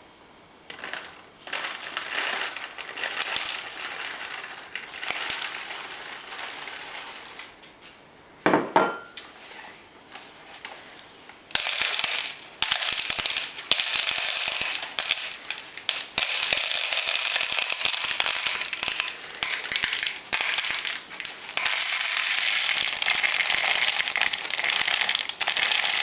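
Gravel trickling through a paper coffee-filter funnel into an empty plastic water bottle, the small stones rattling and clicking against the plastic, with one sharper knock about a third of the way in. About halfway through it turns louder and denser as the filter is held on the bottle neck and worked to get the rest of the gravel through.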